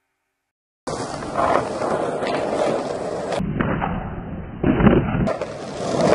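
Skateboard wheels rolling over tiled paving, starting about a second in, with a few sharp clacks as the board hits the ground.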